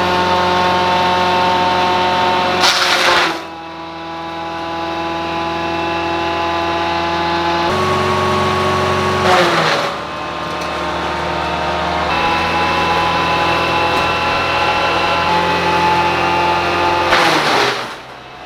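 Altec DC12 direct-drive wood chipper running under power, feeding through sawmill waste. Three loud bursts of chipping, about three seconds in, about nine seconds in and near the end, each pull the engine down before it climbs back up to speed.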